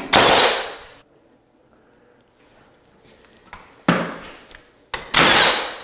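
Tape measure blade being pulled out and run back: three short sliding rasps, each starting sharply and fading within a second, the first and last loudest.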